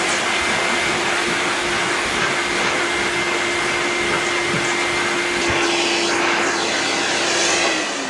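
Vacuum cleaner running steadily, its hose fitted with a small nozzle that is sucking cat hair off a rug. Near the end the motor is switched off and winds down, its pitch falling.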